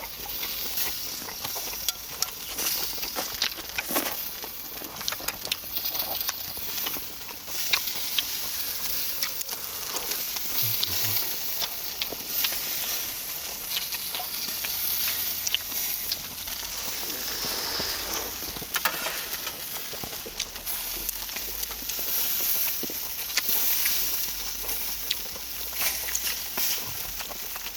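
Duck meat sizzling over a charcoal grill: a steady crackling hiss with many scattered sharp clicks and pops.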